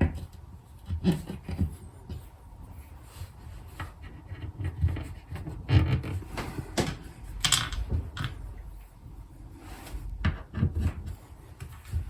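Irregular wooden knocks, clunks and rubbing as a fitted cupboard is reassembled, with shelf pegs pushed back into their holes and the shelves and back panel slotted into place.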